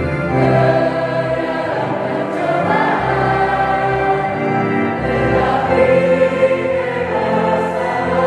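Mixed youth choir of boys and girls singing a church hymn in several-part harmony, holding long chords that change every second or two.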